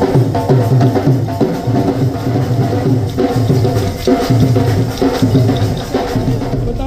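Dhol drums beating a dance rhythm, about three beats a second, with steady pitched music over them.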